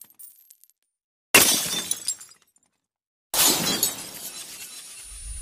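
Glass-shattering sound effects: two sudden crashes about two seconds apart, each tailing off, with a low rumble setting in at the very end.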